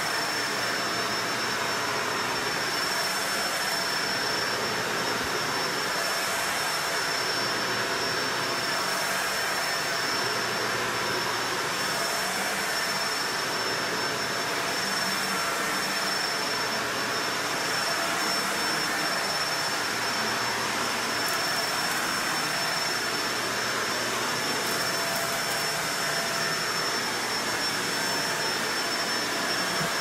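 Upright vacuum cleaner running continuously on nylon Berber carpet: a steady rushing sound with a constant high whine, swelling and easing slightly about every two seconds as it is pushed back and forth.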